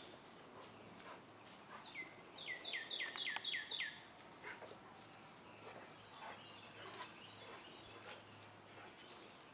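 A bird singing a quick run of about seven down-slurred whistled notes, about two seconds in, over faint scattered ticks and rustles.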